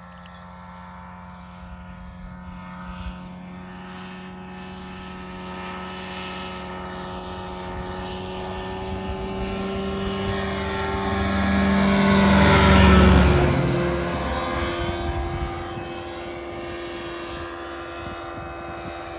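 Ultralight pusher-propeller aircraft making a low pass: a steady engine and propeller drone grows louder to a peak about two-thirds of the way through, then drops in pitch and fades as it goes by. The engine is at part throttle, not full power, flying into the wind.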